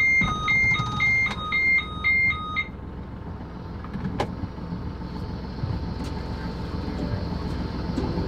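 Electronic two-tone beeping, about two beeps a second, that stops about two and a half seconds in. After it comes the steady low rumble of the yacht's inboard engine running, with a single sharp click about four seconds in.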